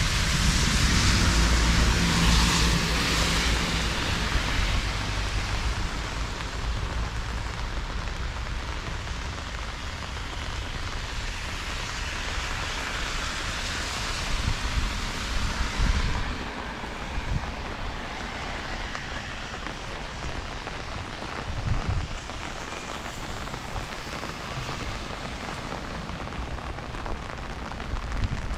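Rain falling on street surfaces in a steady hiss, heaviest in the first few seconds along with a low rumble, then easing a little.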